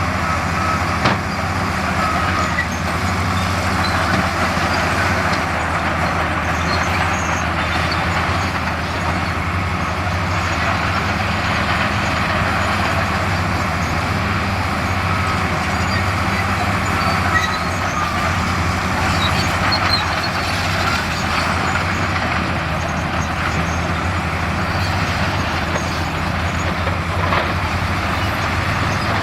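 Heavy diesel construction machinery running steadily at close range, a deep engine drone with a broad mechanical rumble on top. A few short knocks stand out, once about a second in and again around the middle.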